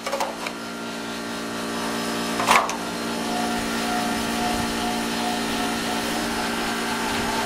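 Outdoor air-conditioner condensing unit humming steadily, building up over the first couple of seconds, with a short clunk about two and a half seconds in; the owner takes the trouble for another failed capacitor.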